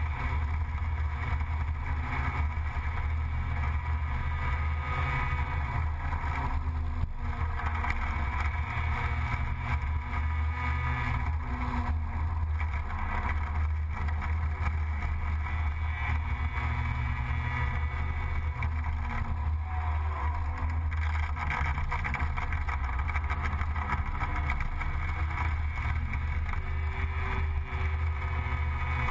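Gilera Runner 180 scooter engine running under way, heard from on board, its note rising and falling with the throttle through the bends.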